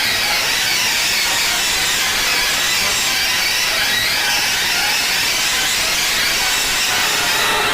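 A wheezing sound heavily processed by audio effects, turned into a loud, steady hiss with a faint sweeping shimmer running through it.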